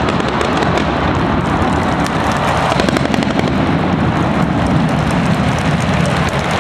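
Ground-level pyrotechnic fountains (gerbs) hissing and crackling, within a loud, steady rushing noise that keeps going at the same level after the fountains burn out about four seconds in.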